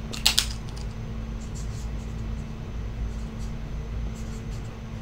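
Steady low room hum with a faint steady tone, broken by a short rustle just after the start and a few faint ticks later on.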